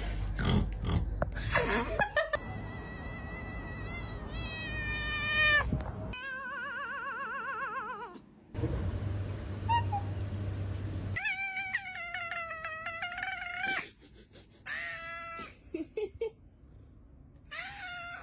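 Domestic cats meowing and yowling in a string of short clips, some calls long and drawn out with a wavering pitch, others shorter meows.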